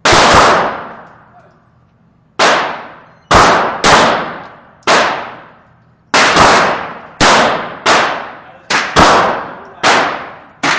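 Glock 17 9mm pistol being fired, about a dozen shots at an uneven pace, some close together and some a second or two apart, each shot ringing and dying away over about a second.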